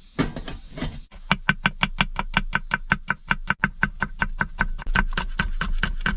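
Kitchen knife chopping quickly on a cutting board, an even run of sharp knocks at about six a second, starting about a second in.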